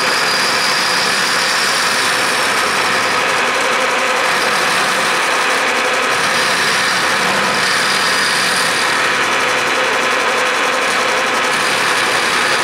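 Milling machine with a sharp 3/4-inch solid carbide end mill taking a face cut across the iron-alloy base of a Parker bench vise: a steady, even cutting noise.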